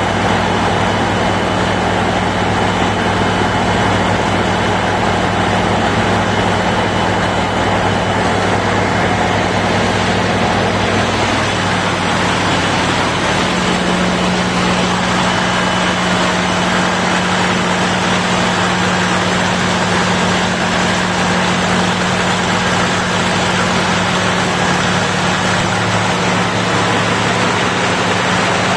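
Caterpillar auxiliary diesel generator running steadily and loudly, with a constant low drone; about thirteen seconds in its tone shifts slightly as the low hum changes.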